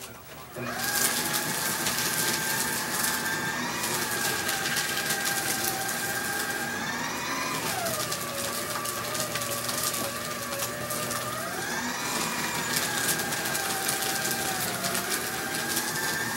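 Electric paper shredder starting up about half a second in and running with paper being fed through it: a steady motor whine over a dense crackle of cutting paper. The pitch sags for a few seconds in the middle as the motor slows under the load of paper, then rises again.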